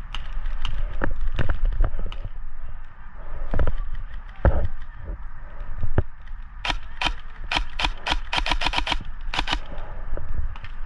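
Airsoft guns firing: scattered single shots, then a fast string of shots from about six and a half to nine and a half seconds in. A few heavier thumps come in the first half.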